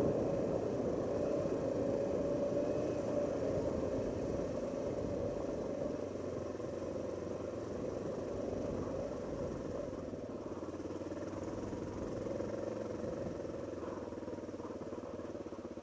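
Honda XR650L's air-cooled single-cylinder four-stroke engine running steadily while the bike is ridden, easing off slightly in the second half.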